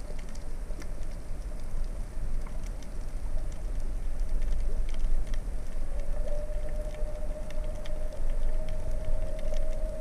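Underwater ambience through a camera's housing: a low rumble with scattered faint clicks and crackles. A steady hum comes up about six seconds in and holds.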